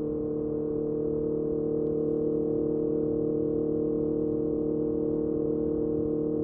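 Honda CBR650R's inline-four engine through a MIVV MK3 carbon-fibre aftermarket exhaust, running at a steady pitch with the revs held constant.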